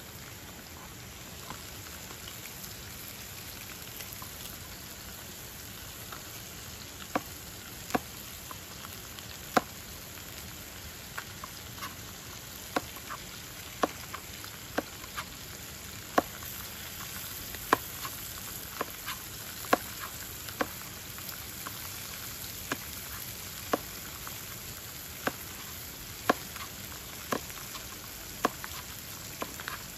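Meat sizzling in a frying pan on a portable gas stove, with a kitchen knife chopping on a plastic cutting board: sharp, irregular knocks that start several seconds in and come about once a second over the steady sizzle.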